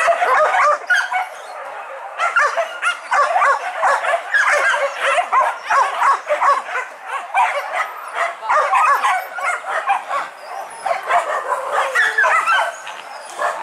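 A pack of hunting dogs barking and yelping, many voices overlapping with hardly a break.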